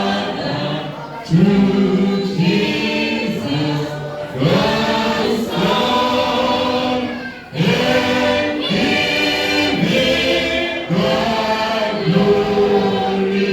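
Many voices singing a hymn together in church, in phrases a second or two long.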